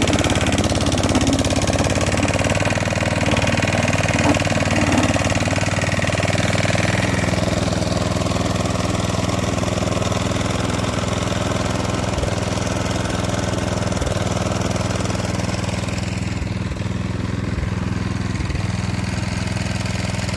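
Klippo petrol lawn mower running steadily, with an extra rasping higher sound over the engine for the first seven seconds or so that then fades.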